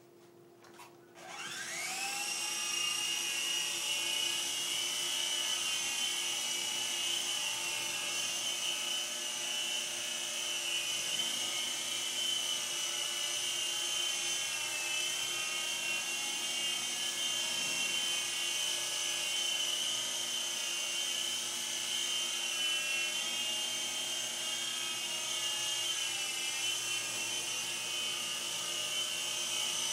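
Small electric RC helicopter, a Candide Lightning, spinning up about a second in with a rising whine, then running steadily in flight with a high, slightly wavering motor and rotor whine.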